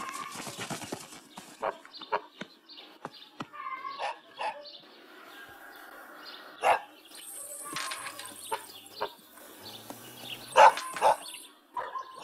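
A farm dog barking in short, separate barks, the loudest about two-thirds of the way in and a pair close together near the end.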